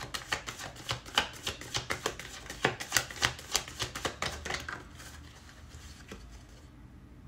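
Tarot cards being shuffled by hand, overhand: a fast run of card slaps and clicks, several a second, that dies away about five seconds in.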